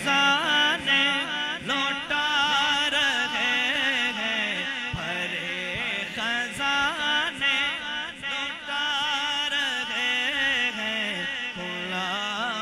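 A man singing a naat, an Urdu devotional poem, solo into a microphone. He draws each line out in long, ornamented phrases whose pitch slides and wavers.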